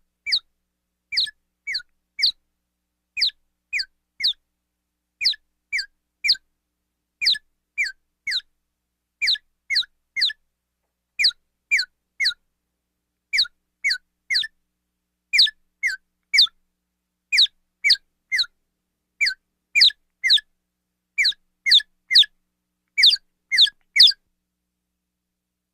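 Bird calling: short, clear whistled notes that slide downward in pitch, given in groups of two or three and repeated about every two seconds, stopping near the end.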